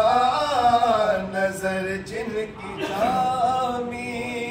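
A man chanting an Urdu devotional kalaam unaccompanied, drawing out long, wavering notes.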